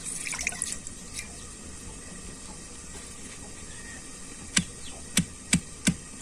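Stone muller striking a flat grinding stone (sil-nora) in an even run of sharp knocks, about three a second, starting about two-thirds of the way through: the washed guagandhari greens being pounded before they are ground to a paste. A short wet rustle of the leaves comes in the first second.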